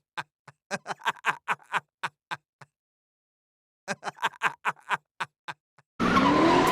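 A synthesized male voice laughing in two runs of short, evenly spaced "ha" sounds with a pause between them. Electronic music starts near the end.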